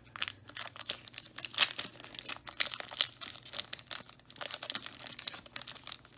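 Trading-card pack wrapper being torn open and crinkled by hand: a dense run of sharp, irregular crackles.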